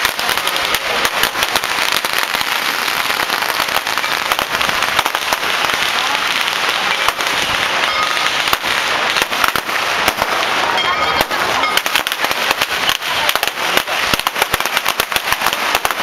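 Strings of firecrackers going off in a dense, unbroken crackle of rapid sharp bangs.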